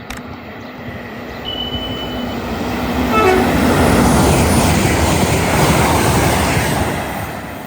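A train passes through the station, sounding a short high horn toot about a second and a half in. The rail noise builds to its loudest in the middle and fades near the end.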